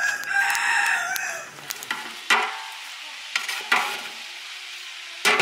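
A rooster crows once, for about a second and a half at the start. Then a metal spatula scrapes four times against the cooking pot as the cooked sweet saffron rice is stirred.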